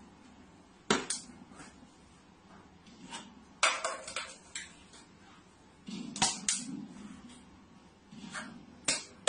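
Sharp knocks and clicks of hard objects, in four short clusters with quiet gaps between.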